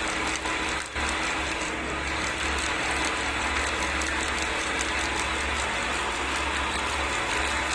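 Electric cable stripping machine running, its motor and belt-driven rollers making a steady mechanical whir with a low hum.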